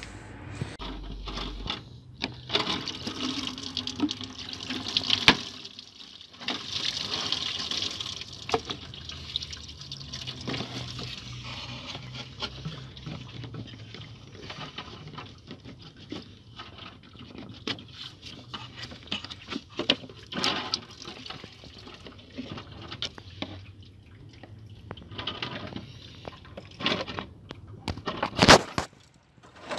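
Coolant splashing and trickling from a disconnected radiator hose, mixed with clicks and knocks of hoses and plastic parts being handled. The splashing is heaviest in the first ten seconds, and a sharp knock comes just before the end.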